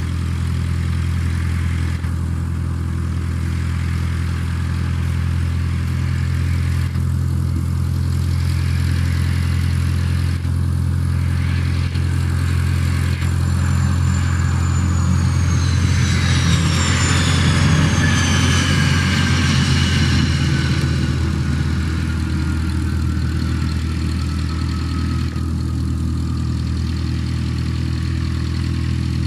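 Cessna Citation CJ4's twin Williams FJ44 turbofans passing on landing: the jet whine grows louder about halfway through, then drops steadily in pitch as the aircraft goes by and moves away. A steady low engine hum sits underneath throughout.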